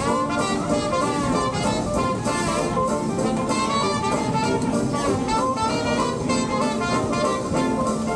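Up-tempo jazz music with brass instruments, saxophone and drums playing continuously.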